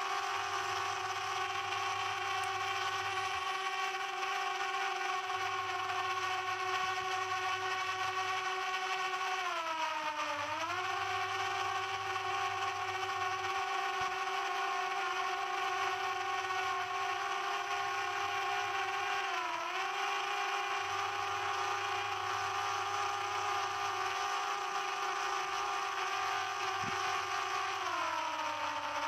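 Quadcopter drone's propellers and motors whining steadily. The pitch dips briefly and recovers three times, about a third of the way in, near the middle and near the end, as the motors slow and speed up again.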